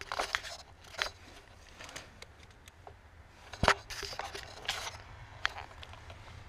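Scattered clicks and light rustling of wires and plastic being handled at a car's under-dash fuse box, with one sharper click about three and a half seconds in, over a faint steady low hum.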